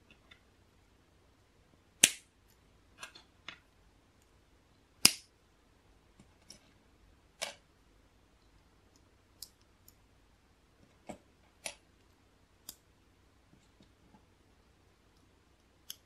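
LEGO plastic pieces snapping together: about a dozen short, sharp clicks at irregular intervals, the loudest about two and five seconds in.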